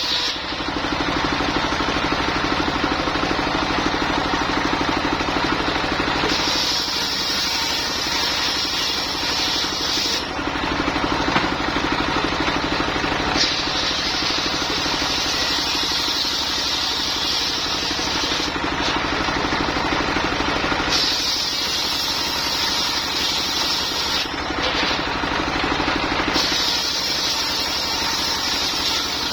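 Engine-driven portable circular sawmill running steadily, with the saw blade cutting through lamtoro wood about four times, each cut a higher sawing sound of a few seconds over the engine.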